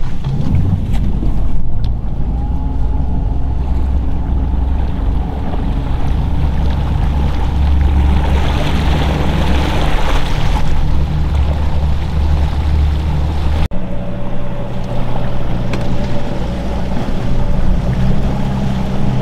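Motorboat running at speed across open water: a steady engine drone with water rushing and wind on the microphone. The sound changes abruptly about two-thirds of the way through to a steadier engine hum.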